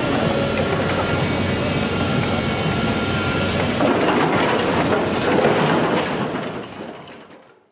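Tracked demolition excavator with a steel shear attachment working on rubble: engine and hydraulics running under a steady clatter of steel and debris, fading out near the end.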